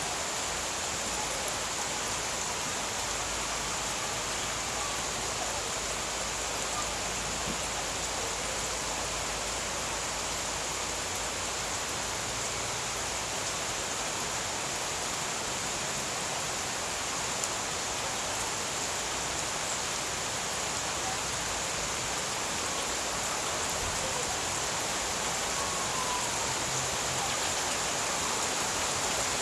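Steady summer rain pouring down, falling on garden plants and leaves as an even, continuous hiss.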